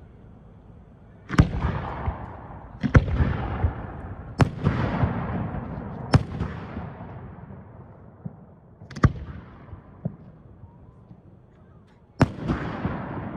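Aerial fireworks bursting: six loud bangs at uneven intervals, each followed by a fading tail of echo and crackle.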